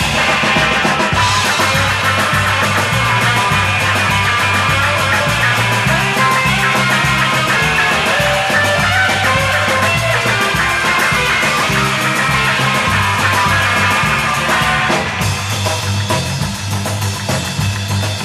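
Upbeat rock music with electric guitar, a pulsing bass line and drums at a fast steady beat; it drops a little in level about fifteen seconds in.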